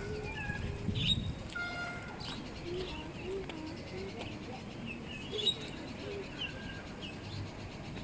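Many short, high chirps and squeaky calls at several pitches, overlapping and scattered throughout, from small animals, either birds or otters calling.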